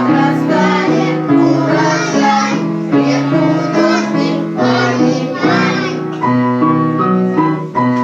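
Children singing a cheerful song over piano accompaniment. The singing stops about six seconds in and the piano plays on alone.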